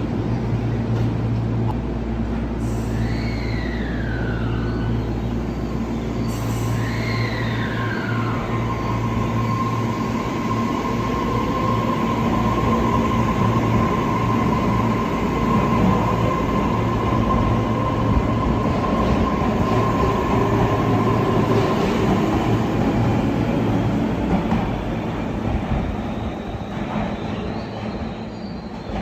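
Tobu Noda Line electric train sounding, with a steady low hum and a held whine through the middle. Two short falling tones come near the start.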